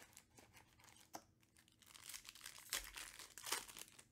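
Foil wrapper of a Panini Prizm UFC card pack crinkling as it is torn open by hand, after a few light clicks; the crinkling is loudest in the last two seconds.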